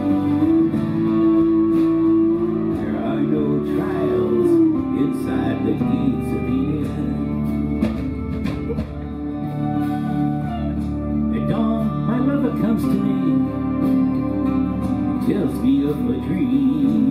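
Live band music with guitar to the fore, and a long held note through the first four seconds or so.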